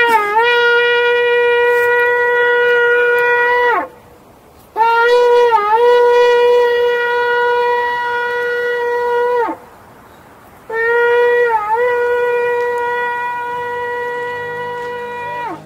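A shofar blown in three long blasts, each held on one steady note. Each blast has a brief wobble in pitch just after it starts and sags in pitch as it dies away.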